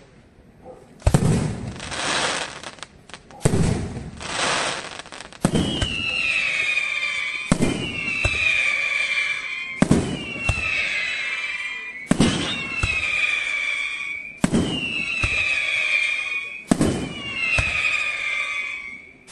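Aerial fireworks shells bursting in a steady series, one sharp bang about every two seconds. From about six seconds in, each bang is followed by a falling whistle.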